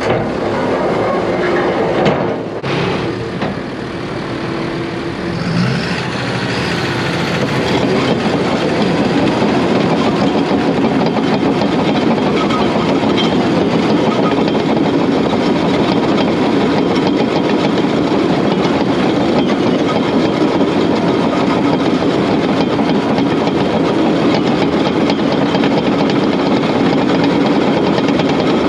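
Caterpillar D6K bulldozer's diesel engine running, with a few knocks in the first seconds; the sound grows louder several seconds in and then holds steady.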